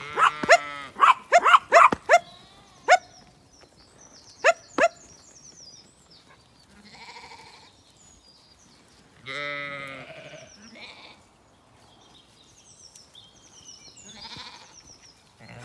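Zwartbles sheep and lambs bleating: a quick run of calls over the first three seconds, a couple of short ones about four and a half seconds in, and one long bleat about nine seconds in.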